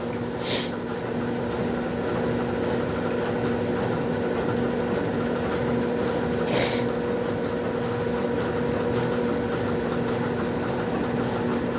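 Washing machine running with a steady motor hum, broken by two brief swishing noises, about half a second in and a little past the middle.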